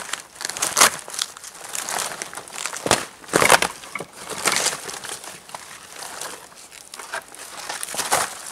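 Papery birch bark crackling and crinkling as it is pulled and peeled off a fallen birch log by hand, in irregular rustling scrapes, the loudest a little over three seconds in.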